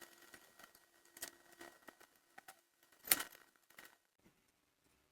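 Faint scattered clicks and taps of small parts being handled as a magnetic electrical connector is taken apart, with one sharper click about three seconds in.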